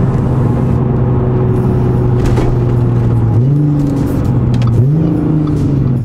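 Supercharged 3.0-litre V6 of an Audi S4 running steadily as the car drives, heard from inside the cabin; the engine note rises sharply twice, about three and a half and five seconds in.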